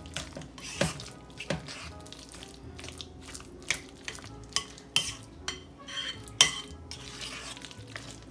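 A spoon stirring a thick mixture in a mixing bowl, clinking and scraping against the bowl in irregular knocks, the loudest about six seconds in.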